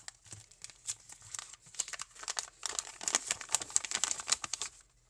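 Packaging crinkling and tearing as a knife parcel is unwrapped by hand. It makes quick, irregular crackles that grow denser in the second half and stop just before the end.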